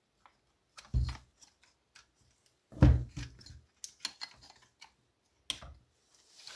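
Plastic chainsaw parts handled and fitted together by hand: a run of clicks and light knocks, with two heavier thumps about one and three seconds in.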